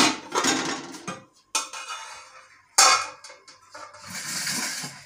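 Large aluminium cooking pot and its lid knocking and clanking as the pot is set down on a gas burner's grate and the lid is lifted off, several sharp metallic knocks that ring briefly. A steady hiss follows near the end.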